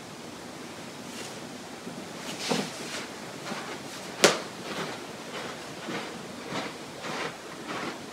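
Rustling as a person gets up from a yoga mat, one sharp knock about four seconds in, then soft footsteps on carpet, over a steady background hiss.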